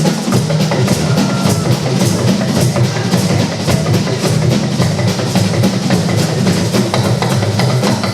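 Music driven by drums and percussion: fast, even strikes over a steady bass line.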